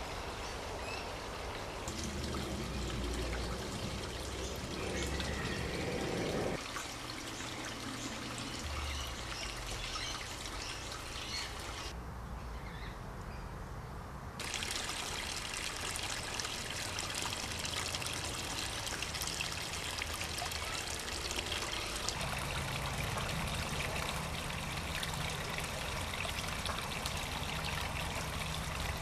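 Water from a small garden pond waterfall and creek trickling and splashing in a steady stream. The sound shifts abruptly about six seconds in, turns duller for a couple of seconds near the middle, then comes back a little louder.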